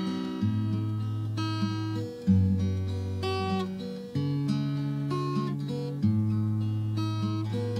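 Background music: an acoustic guitar strumming slow chords over held bass notes, with a new chord struck about every two seconds.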